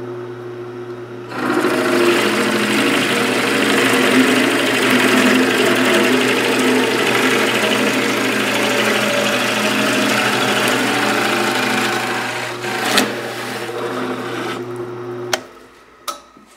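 Harbor Freight 13-inch floor drill press's 3/4 horsepower induction motor running with a steady hum while a Forstner bit bores into a pine board, a loud cutting and chip-throwing noise from about a second in until about twelve seconds. The motor is then switched off near the end.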